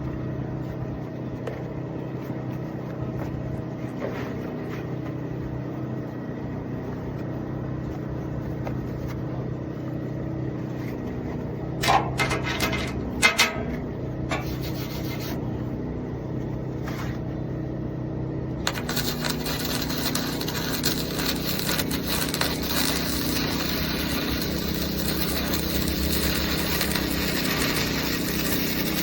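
AZZUNO 130 A flux-core welder: a steady hum with a few sharp clicks about twelve seconds in, then from about nineteen seconds a continuous crackling hiss of the flux-core welding arc.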